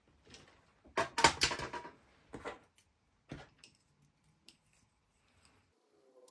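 Metal tools handled on a table: a drawing compass picked up and its legs worked, a clustered clatter about a second in, then several single clicks.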